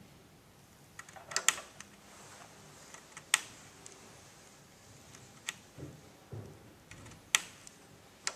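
Scalpel blade slicing a potato core into thin discs, with sharp clicks each time the blade comes down on the white cutting tile, irregularly every one to two seconds, plus a couple of softer knocks.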